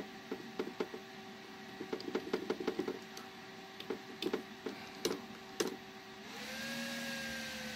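Irregular clicks, single and in quick runs, from navigating a PC's BIOS setup menus, over a faint steady hum. At about six seconds the computer restarts: a rush of fan air swells, and a fan tone jumps up and then slowly falls in pitch.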